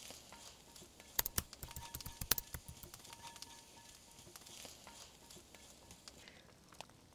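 Quiet, with a cluster of sharp crackles and clicks between about one and two and a half seconds in, over a faint background.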